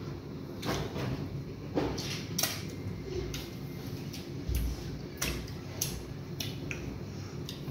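Close-up eating sounds of fufu with soup: chewing with sharp wet mouth smacks and clicks, about seven or eight scattered irregularly.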